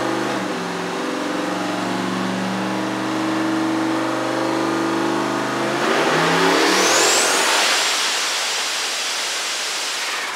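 Turbocharged Ford Mustang V8 running on a chassis dyno, holding fairly steady revs. About six seconds in it gets louder and turns into a broad rushing noise with a high whistle that rises and falls, the big single turbo spooling up.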